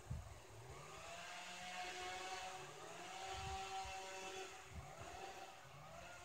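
Whirring whine of a zip line trolley running along its cable, rising and levelling off in pitch several times. A short low thump just after the start, and a few softer low bumps.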